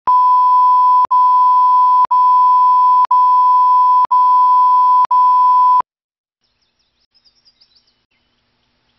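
A loud, steady electronic beep tone, broken by a brief gap about once a second, cuts off suddenly about six seconds in. Faint high chirps follow.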